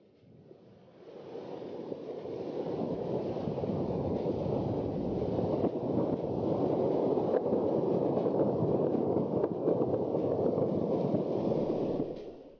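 An erupting volcano's steady rushing rumble. It builds over the first two seconds and cuts off suddenly near the end.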